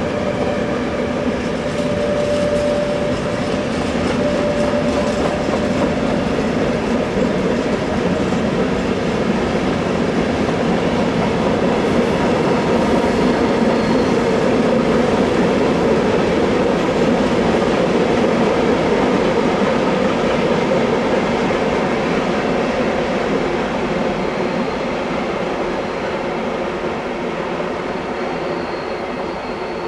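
A train rolling past on a railway curve: a steady, loud rumble of wheels on rail, loudest about halfway through and fading toward the end, with faint thin wheel squeal here and there.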